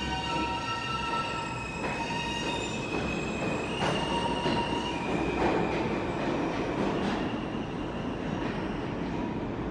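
R160 subway train pulling out of the station and running off into the tunnel: a steady rumble of wheels on rail under high squealing tones that hold, then shift to new pitches every second or so.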